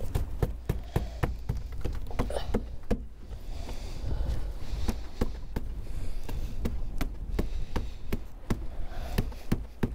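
Irregular sharp knocks and taps on wood, a few a second with short pauses, as new planks are fitted and pressed against a wooden boat's frames.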